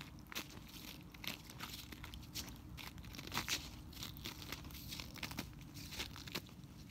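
Ice crackling and crunching: irregular sharp clicks and crunches several times a second, with a louder cluster about halfway through.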